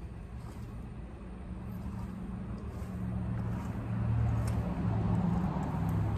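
A motor vehicle's engine hum growing louder as it approaches and passes by.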